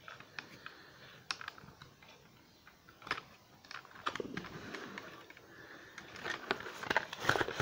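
Small irregular clicks and scrapes of a hand screwdriver working a tightly fastened screw through the cardboard base of a model's packaging, with the cardboard rustling as it is handled near the end.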